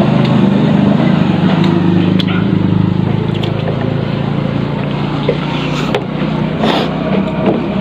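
A steady engine-like motor hum, with faint clicks and taps over it.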